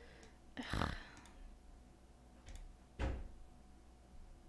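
Two soft thumps about two seconds apart and a few faint clicks, the sounds of someone handling a mouse and desk at a computer, over a low steady hum.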